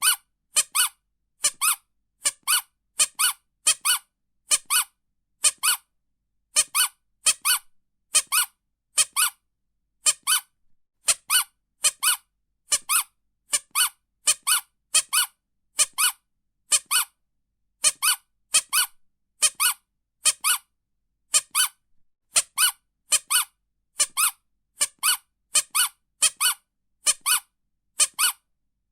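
Squeaky toy squeezed and released over and over, giving short, high squeaks, mostly in pairs, with silent gaps between each pair.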